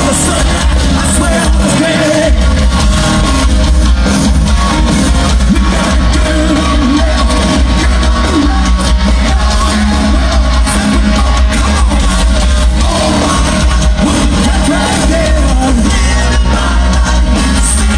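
A hard rock band playing live, with a lead singer, drums, electric guitar and keyboards, heard from the crowd with heavy, steady bass.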